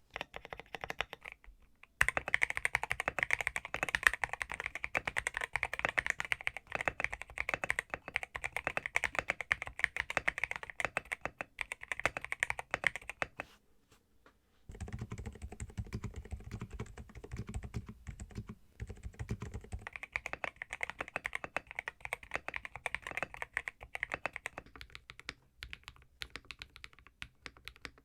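Fast continuous typing on a custom mechanical keyboard: a Zuoya GMK67 with unlubed Matcha Green switches, XDA-profile keycaps and a tape mod, a dense run of quick key clacks. About halfway through there is a short pause, then the typing comes back with a deeper, bassier sound for several seconds before turning brighter again.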